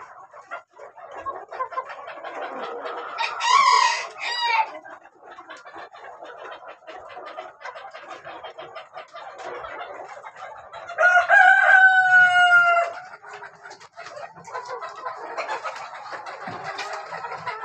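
A flock of white-crested black Polish chickens clucking and chattering, with a short rooster crow a few seconds in and a longer, louder crow, falling slightly in pitch, about two-thirds of the way through.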